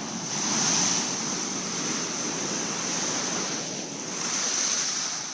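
Large wind-driven waves crashing and surging against a break wall, swelling louder twice, with strong wind rushing over the microphone.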